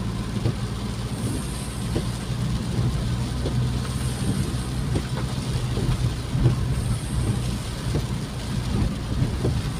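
Engine and road noise heard from inside a moving vehicle: a steady low rumble with scattered light knocks.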